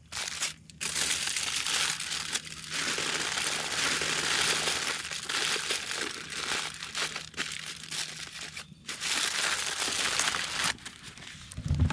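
Aluminium foil being folded and crumpled around vegetables, a continuous crinkling with brief pauses, followed by a few soft low thuds near the end.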